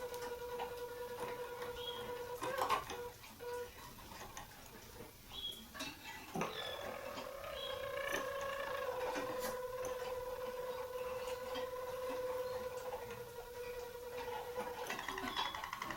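Harzer roller canary singing its low rolling song. It holds two long, steady rolls: the first breaks off about two and a half seconds in, the second runs from about six seconds to near the end. A few soft clicks fall in the gap, and a quick pulsing phrase comes at the close.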